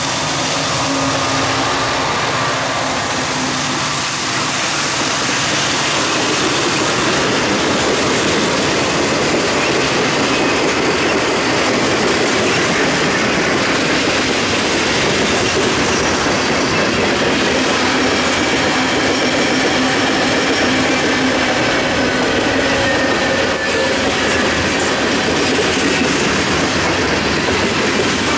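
Norfolk Southern mixed freight train passing at close range: the last diesel locomotives go by at the start, then a long string of covered hopper cars rolls past, their steel wheels running steadily on the rails.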